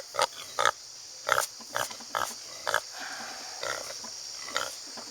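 Pig grunting in a run of short, separate grunts, about ten in all, coming quickly at first and then slower and fainter.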